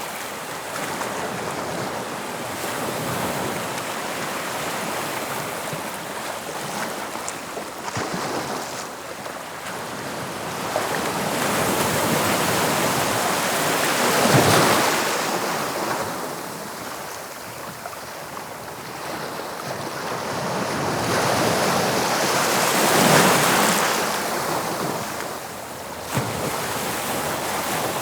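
Sea waves breaking on the shore: a continuous rushing wash that swells twice into louder breaks, about halfway through and again a few seconds before the end.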